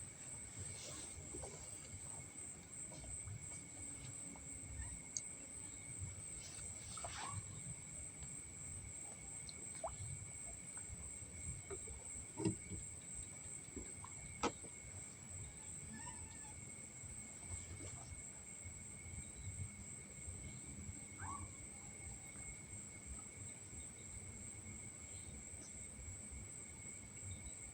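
Night insects such as crickets trilling steadily: one very high, fast-pulsing trill and a second, lower steady trill running together, with a few faint clicks.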